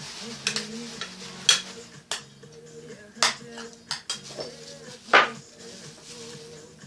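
A spoon clinking against a bowl while salad ingredients are handled and stirred: about seven sharp, irregular clinks, the loudest about five seconds in.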